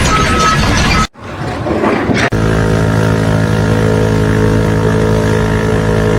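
Loud machinery noise with an intermittent high beep, cut off after about a second; after a short quieter stretch, an engine running steadily at constant speed.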